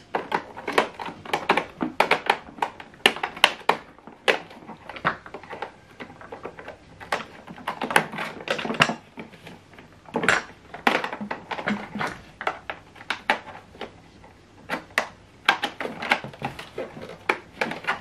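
Hard plastic parts of a Hoover Whirlwind bagless cylinder vacuum cleaner being handled: irregular clicks, knocks and rattles as its dust bin and filter are worked on and fitted together.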